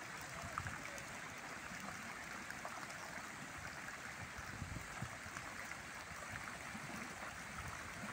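Fountain water jets arcing over and splashing steadily onto shallow wet paving stones.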